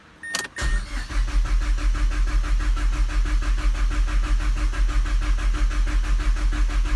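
Mazdaspeed3's turbocharged 2.3-litre four-cylinder being turned over by the starter motor in an even, steady rhythm, cranking and cranking without ever catching: the engine is getting no spark. A short electronic beep comes just before the cranking begins.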